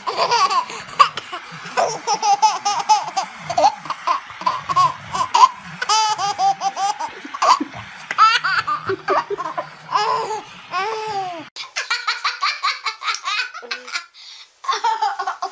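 A baby laughing in repeated bursts. After a cut near the end, a girl laughing.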